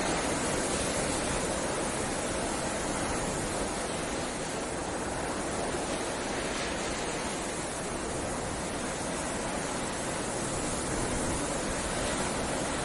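Snowstorm wind, a steady even rushing noise that eases a little midway and swells again near the end.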